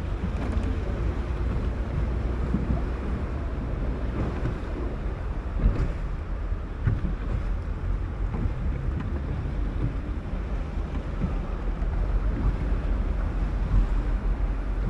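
Motorboat engine running steadily over open water, with wind rumbling on the microphone.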